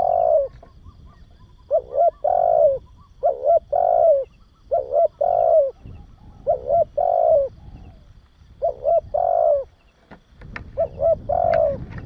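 Spotted dove cooing: a repeated phrase of two short coos followed by a longer coo, coming every one and a half to two seconds, about six phrases in all.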